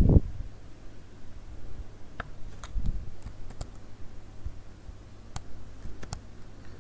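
Scattered clicks of a computer mouse and keyboard, about half a dozen sharp separate clicks spread over a few seconds, as text is selected, copied and pasted. A low thump right at the start, over a steady low hum.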